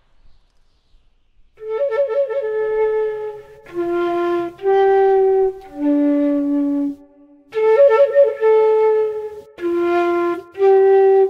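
Solo flute playing a slow melody of held notes, opening with a short trill; it comes in after about a second and a half of silence, and the phrase starts over about six seconds later.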